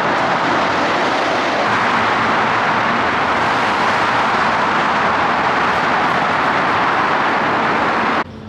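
Steady road traffic noise inside a road tunnel: a loud, even rush from cars driving through. It cuts off abruptly near the end.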